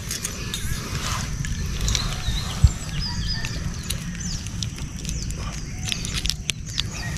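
Gloved hands fiddling with a fishing hook and line in a caught fish's mouth, making scattered small clicks and rustles over a steady low wind rumble on the microphone.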